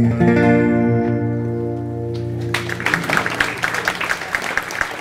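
Acoustic guitar's closing chord ringing out at the end of a song. About two and a half seconds in, an audience starts applauding.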